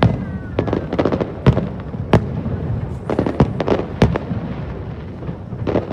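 Aerial fireworks shells bursting in quick succession, a string of sharp booms and cracks, some in rapid clusters, with short whistles near the start.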